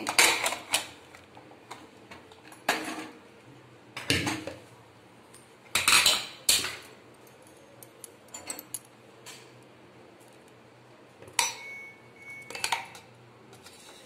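Aluminium pressure cooker lid being twisted open and lifted off, its pressure already released: a series of separate metallic clanks and scrapes, then a utensil knocking against the pot with a brief ring near the end.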